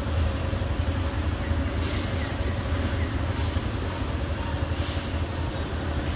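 A steady low rumble, with three short, soft hisses about two, three and a half, and five seconds in.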